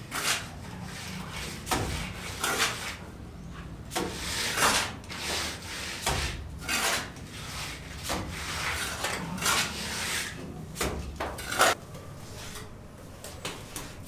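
Irregular scraping or rubbing strokes, roughly one a second.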